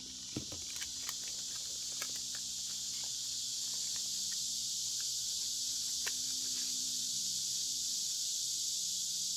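Hands pressing and handling glued, folded paper pieces, giving a few soft clicks and rustles over a steady high hiss and a faint low hum.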